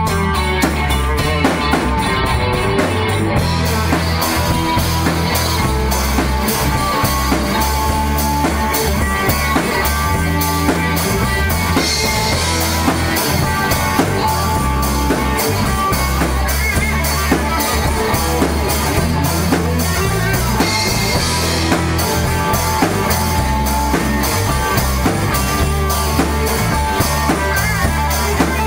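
Rock music with a full drum kit, electric guitar and bass playing steadily; the cymbals come in about three and a half seconds in.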